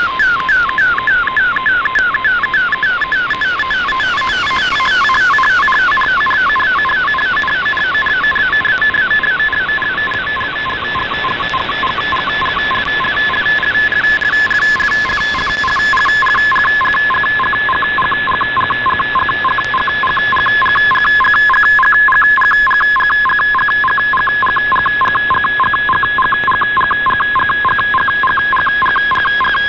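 Shortwave broadcast audio of an MFSK picture transmission being received: a warbling digital-mode tone that sweeps over and over, several times a second, with a steady whistle running through it over faint radio hiss.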